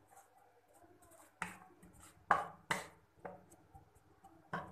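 Wooden spatula knocking against a metal karahi while stirring chopped onions in oil: about five sharp taps, unevenly spaced.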